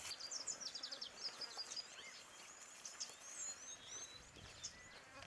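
Small birds chirping in short, high, quick notes, with a rapid run of notes about half a second in, over a faint steady hiss of ambience.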